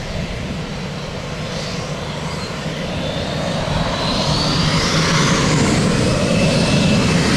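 Jet aircraft engines spooling up, a rising high whine over a steady rumble that grows louder through the second half.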